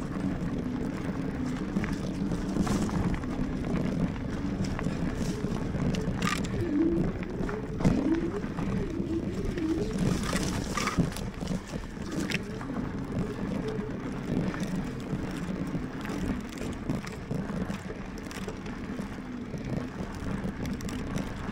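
Lectric XPeak fat-tyre electric mountain bike riding along a dirt trail: steady rolling and drivetrain noise with wind on the microphone, and a few sharp knocks and rattles from bumps in the trail.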